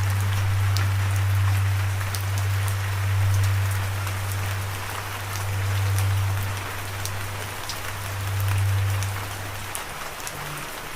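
Steady rain, an even hiss with scattered sharp drop ticks, over a low droning hum that swells and fades every couple of seconds. The hum stops near the end and a slightly higher tone comes in.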